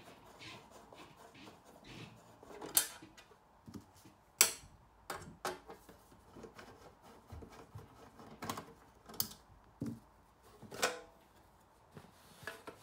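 A screwdriver turning out the screws of a battery charger unit's cover, then the cover being lifted off and set down: scattered clicks and knocks, the loudest about three and four and a half seconds in.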